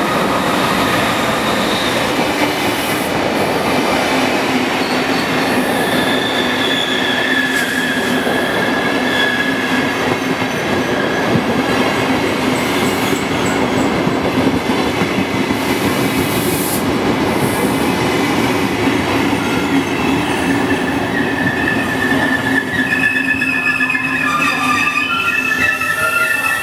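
Electric-hauled passenger train pulling in along a station platform, its coaches rolling past with a steady rumble. High wheel and brake squeals come and go over it as the train slows to a stop.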